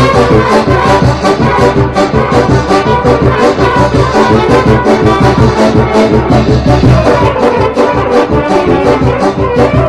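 Lively Balkan-style brass band music, with trumpets and trombones playing over a steady fast beat.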